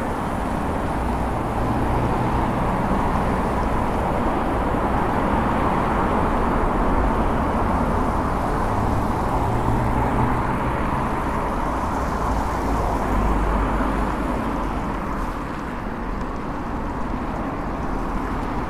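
Road traffic on a multi-lane road, with cars passing alongside, heard from a moving road bike over a steady rush of wind on the microphone.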